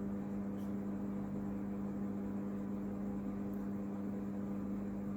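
Steady electrical hum with a faint hiss, unchanging throughout: recording-line noise, with the strongest tones near 200 Hz and 300 Hz.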